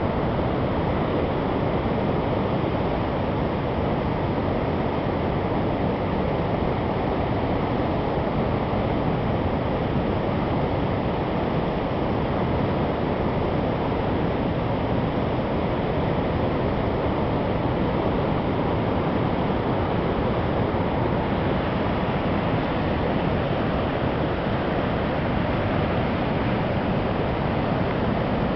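Steady rushing roar of a river waterfall and its rapids, an even unbroken noise.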